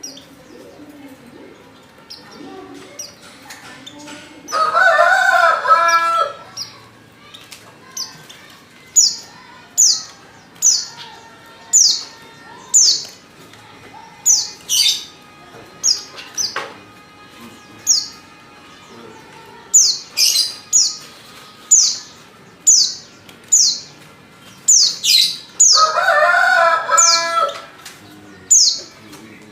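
Female white-eye (pleci) lure call: short, high, falling chirps repeated about once a second. Twice a louder, lower call lasting a couple of seconds cuts in.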